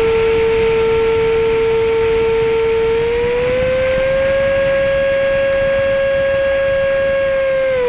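Electric ducted-fan motor of a Banana Hobby F-22 RC jet, a steady high whine. Its pitch rises a little about three seconds in, holds, then falls back near the end.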